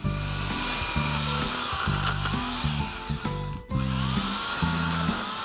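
Corded electric pole saw running with its chain cutting through a tree limb, the motor's whine bending in pitch as it works, over background music with a steady beat.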